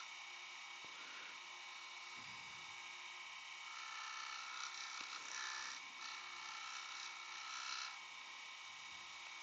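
Wood lathe running with a faint, steady whine while Yorkshire Grit abrasive paste is rubbed onto the spinning wooden box to finish it; the rubbing hiss grows louder from about four to eight seconds in.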